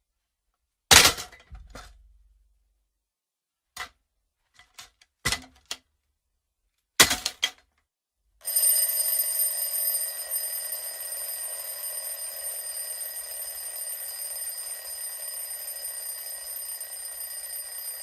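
A string of short cartoon sound effects: a sharp hit about a second in, a few light clicks, another sharp hit about seven seconds in, then a bell ringing continuously for nearly ten seconds before cutting off sharply.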